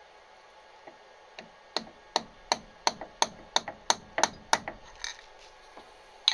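About a dozen sharp metal-on-metal clicks, roughly three a second, as fingers work the steel rod against the aluminium bracket of a lathe tailstock-to-carriage link, then one more click near the end.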